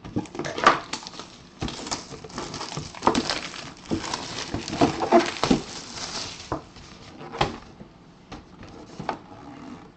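Cardboard and plastic packaging being handled and torn open by hand, rustling and crinkling with scattered clicks and knocks. The handling grows sparser after about seven and a half seconds.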